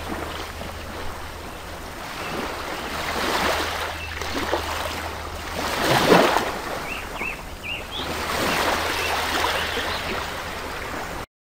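Aquarium ambience: a rushing, water-like noise that swells and fades every few seconds over a steady low hum, with a few faint short high chirps about seven seconds in. It cuts off suddenly just before the end.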